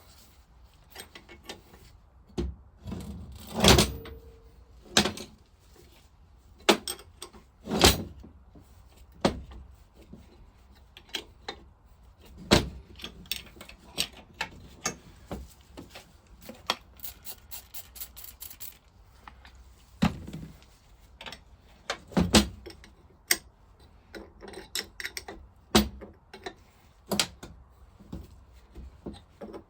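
Hand tools and metal parts clinking and knocking irregularly as a Lister engine's vaporiser is dismantled, with a few louder knocks among lighter taps.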